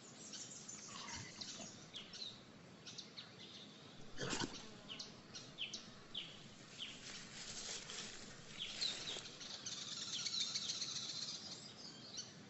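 Faint outdoor bush ambience of birds chirping: scattered short, falling calls. One short sharp click sounds about four seconds in.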